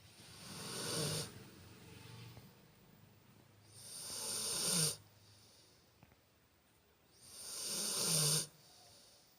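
Loud snoring: three long snores, each swelling over about a second and cutting off sharply, roughly three and a half seconds apart, with quiet breathing in between.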